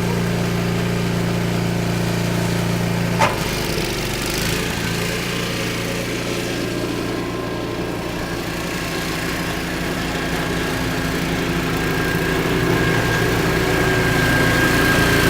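Small snowblower engine running steadily. About three seconds in there is a single sharp click, after which the engine note changes, and it keeps running, getting a little louder toward the end.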